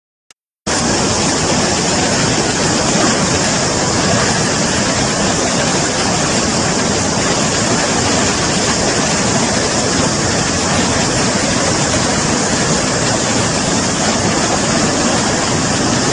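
Flash-flood torrent rushing through a wadi: a loud, steady, even rush of water that starts abruptly under a second in and does not change.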